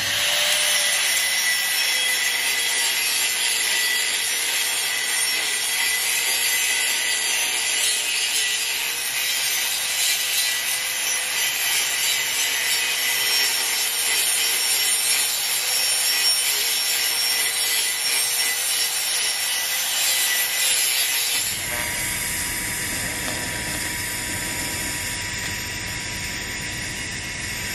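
A torch melting out a too-flat root pass weld so it can be redone: a steady hissing noise that changes character about 21 seconds in.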